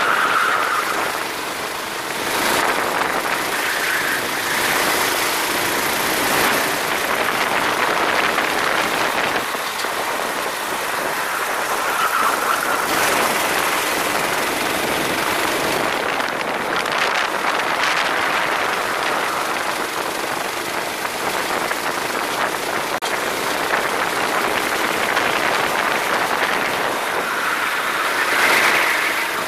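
Go-kart engine running at speed, half buried in a steady rush of wind noise, with a higher engine note that comes up for a second or two every few seconds.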